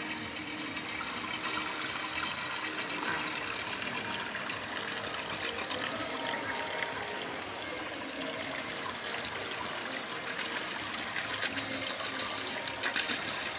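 Steady trickling and splashing of water at an outdoor swimming pool.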